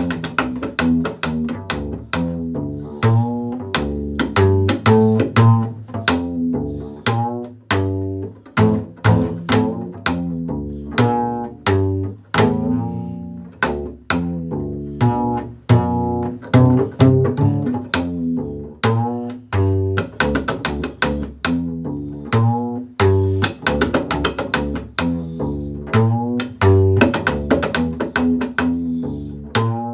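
Upright bass played in slap style: plucked low notes mixed with sharp clicks of the strings snapping against the fingerboard, in a quick, steady rhythm.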